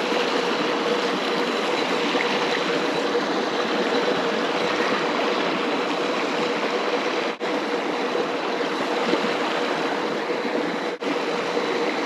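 Steady rush of creek water running over rocks, with two breaks that last only an instant, one past halfway and one near the end.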